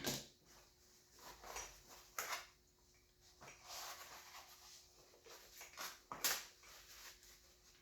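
Scattered light clicks, knocks and scrapes of hands working on the metal parts of a two-stroke dirt bike engine during a top-end teardown, over a faint steady hum.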